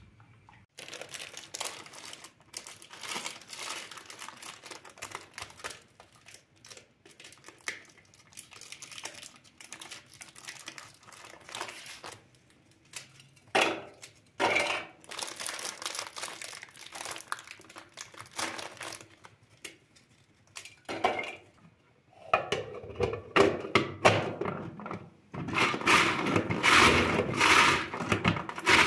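Close handling sounds: irregular crinkling and rustling with scattered small knocks, in bouts separated by short pauses and busiest near the end.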